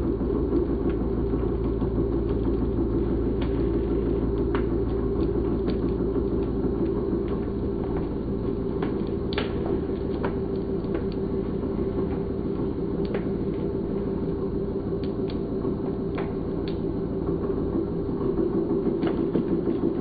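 Hydraulic press running with a steady hum as its ram lifts off a crushed plastic bottle, with scattered crackles and clicks of the plastic springing back, the sharpest about nine seconds in.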